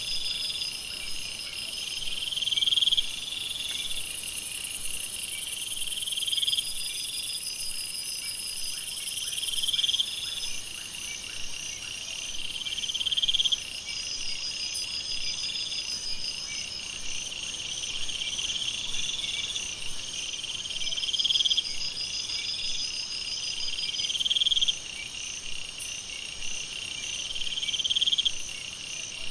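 Jungle night chorus of insects and frogs: a steady high trilling, with a call that swells upward every few seconds. A loud high buzz comes in about three seconds in and cuts off suddenly about ten seconds in.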